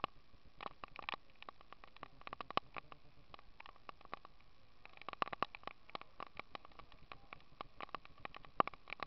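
Rain pattering close to the microphone: a quick, irregular run of small taps.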